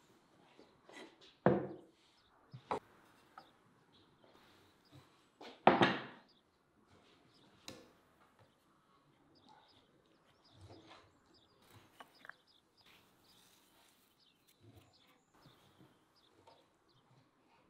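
Kitchen handling sounds while making dough. There are two sharp knocks, one about a second and a half in and one about six seconds in, and a few lighter knocks as things are handled on a wooden table. Between them comes the soft rustle of a hand stirring flour in a plastic bowl.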